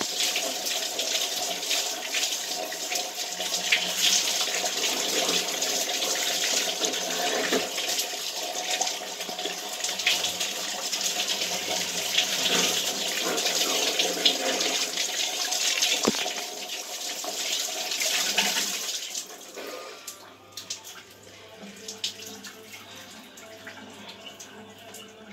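Shower spray running steadily over hair and shoulders as shampoo is rinsed out; the water stops about 19 seconds in.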